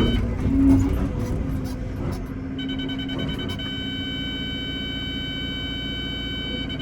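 Excavator engine running with a steady low rumble, a few light knocks early on, and a steady high whine that comes in about two and a half seconds in.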